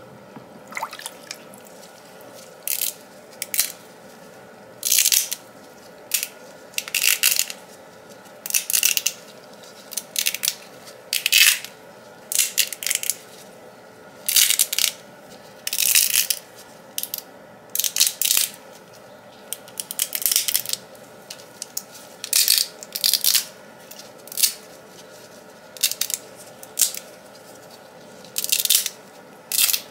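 Cured resin support structures being snapped and crackled off a resin 3D print by hand: a series of short, crisp cracking snaps, roughly one every second or so.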